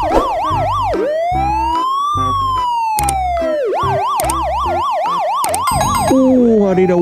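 Electronic police siren: a fast yelp of about four rises and falls a second, then one slow wail rising and falling, then the fast yelp again, over a low pulsing beat. Music comes in near the end.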